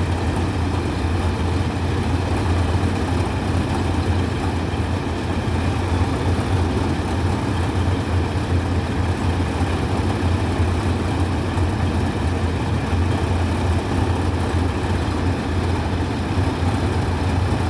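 Rice combine harvester running steadily: a constant deep engine hum with machinery noise over it, level and unchanging.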